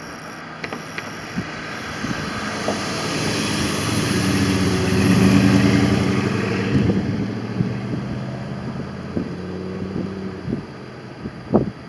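A car driving past: engine and tyre noise rise to a peak about five seconds in, then fade away. A few short knocks follow near the end.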